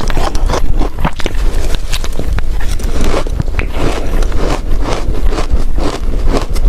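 Close-miked crunching and chewing of freezer frost ice: a dense run of irregular crunches and crackles.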